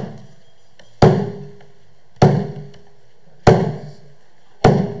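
Brass cymbal struck with a mallet in a slow, even beat: four strikes about 1.2 seconds apart, each ringing briefly and dying away before the next.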